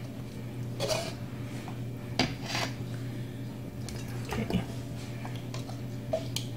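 A clear plastic measuring jug knocking and scraping against a large aluminium stockpot as thick fish sauce is scooped out and poured into a glass jar, a handful of separate clunks over a steady low hum.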